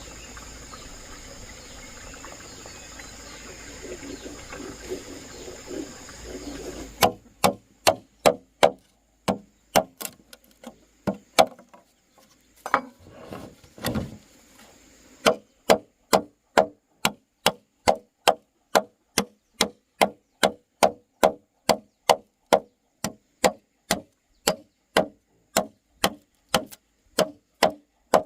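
Wood being chopped with a blade, in a steady rhythm of sharp blows about two to three a second, with a short break in the middle. Before the chopping, a steady background with high steady tones cuts off abruptly.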